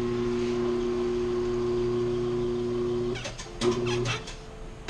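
Tire-changer turntable motor running with a steady electric hum as it turns the wheel and works a studded tire's bead onto the steel rim; it stops about three seconds in, runs again for half a second, then stops, with a few clicks and knocks of the tire and machine.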